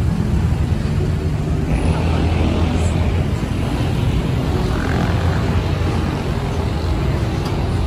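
Steady low rumble of vehicle noise with a hiss above it.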